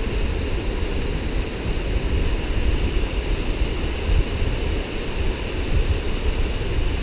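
Wind buffeting the camera's microphone: a steady, uneven low rumble with a fainter hiss above it.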